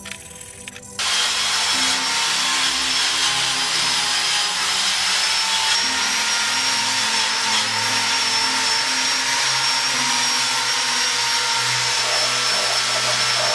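An electric power tool starts about a second in and runs steadily: a constant whine over a loud hiss.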